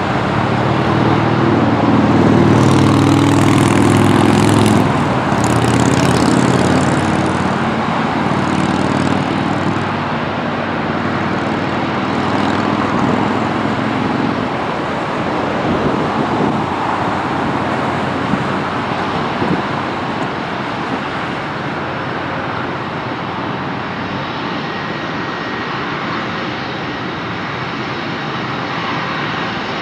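Jet engines of a Boeing 777-300ER (GE90 turbofans) at takeoff thrust: a steady roar, loudest in the first several seconds of the takeoff roll. It then eases off slowly as the airliner lifts off and climbs away.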